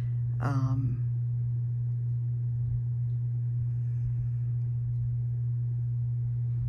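A steady low hum or drone, unchanging throughout, with a brief murmured vocal sound about half a second in.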